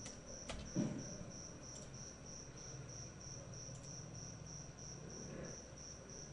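A cricket chirping steadily in the background, a short high chirp about three times a second. A couple of sharp clicks and a soft thump come within the first second.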